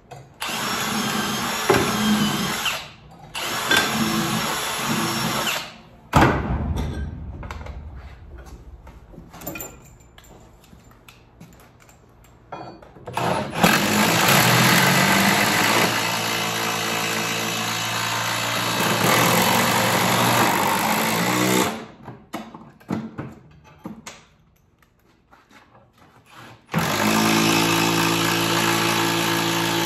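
Cordless drills running in long bursts, driving fasteners into wooden roof-deck boards, the motor pitch shifting under load during the longest run. Between runs there are clicks and knocks of tools being handled, with one sharp knock about six seconds in.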